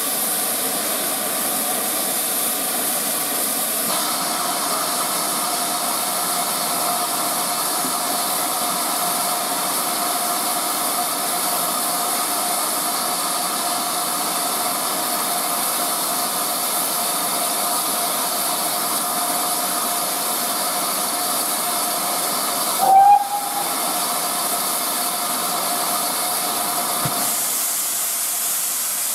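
Steam hissing steadily from a standing steam locomotive, with a faint steady tone in the hiss. Late on there is one short, louder blast.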